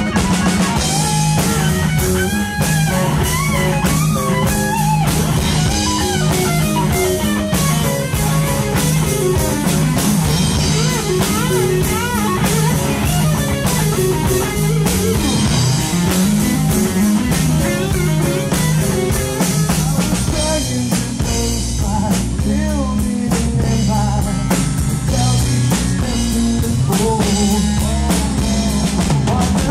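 Live blues-rock band playing loud: a lead line on a Stratocaster-style electric guitar with bent notes, over a drum kit and a bass line.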